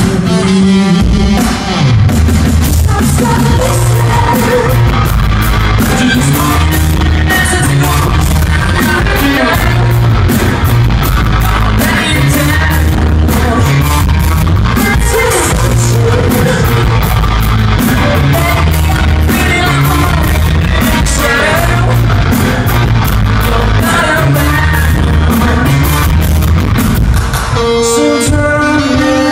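A live rock band plays loudly: a heavy, effects-laden bass guitar riff and a drum kit, with a male singer's voice over them, heard from within the audience.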